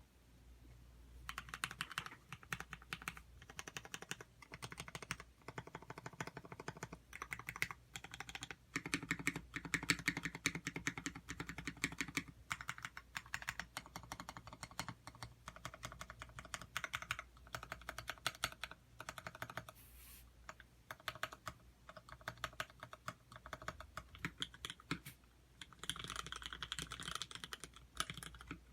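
Custom mechanical keyboard with 51 g springs being typed on continuously in rapid bursts of key clacks, starting about a second in, with a brief pause near the middle.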